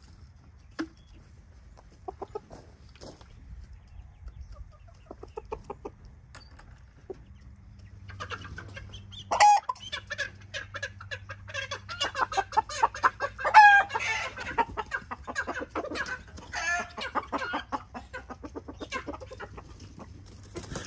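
Backyard chickens clucking and squawking: sparse at first, then a busy flurry of clucks and sharp squawks from about eight seconds in.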